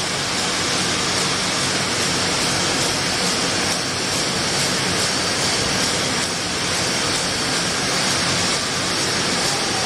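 Steady, even rushing noise of production-line machinery running, with no distinct knocks or clinks standing out.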